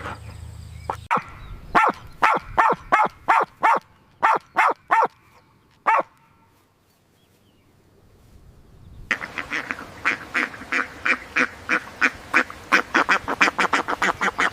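A bird giving a series of short, sharp honking calls, a dozen or so about three a second. After a few seconds' pause, a faster run of honks follows, about four or five a second.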